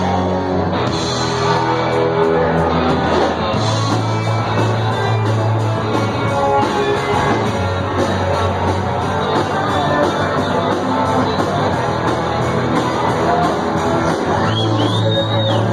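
A rock band playing live, loud and continuous, with distorted electric guitar, heavy bass and shouted vocals.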